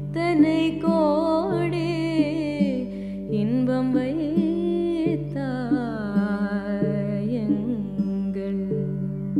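A woman singing a slow, wavering, ornamented melody over a steady plucked string drone from a long-necked, drum-bodied string instrument.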